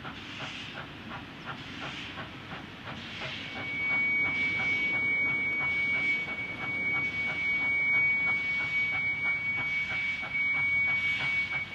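Triple-headed steam train of a K-class and two J-class locomotives working hard, their exhaust beats coming fast and overlapping, with a hiss of steam. From about three seconds in, a steady high-pitched pure tone sounds over the locomotives, and the sound grows louder.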